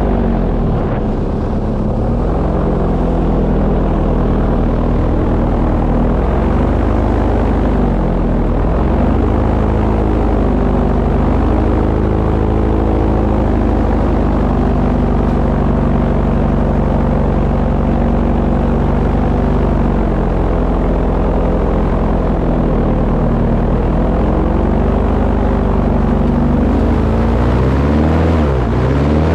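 A boat engine running loud and steady, its pitch easing down and back up several times with the throttle, with the biggest swing near the end.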